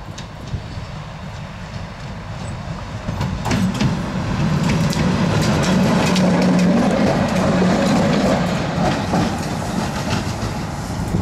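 Bombardier Traxx locomotive running light past at close range. Its steady hum grows louder about three and a half seconds in and is loudest midway as it goes by, while its wheels click over the rail joints.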